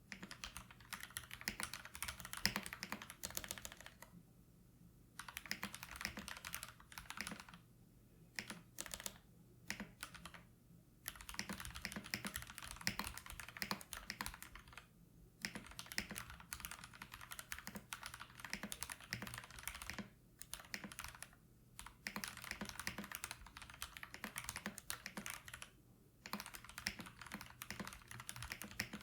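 Typing on a Keydous NJ68 mechanical keyboard fitted with Cherry MX Red linear switches, lubed with 205g0 and filmed. Keystrokes come in quick runs of clicks, broken by several short pauses.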